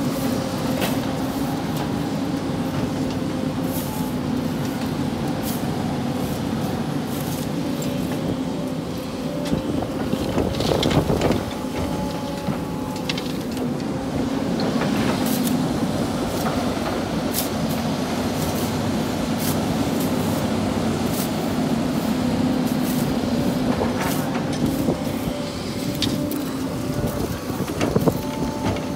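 Sany hydraulic excavator's diesel engine running steadily with a droning hum as the machine swings and works its bucket, with a few sharp clanks. Near the end a bucketful of sand drops into the steel dump-truck bed.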